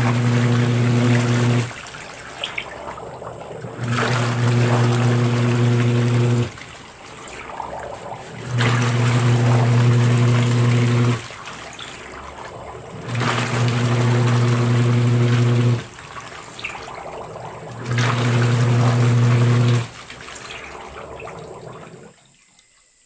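Washing machine wash motor running in five bursts of about two and a half seconds, each with a steady hum, separated by pauses of about two seconds in which only the water sloshing is heard. The timed on-off cycling shows the newly fitted wash timer working. The water sound dies away near the end.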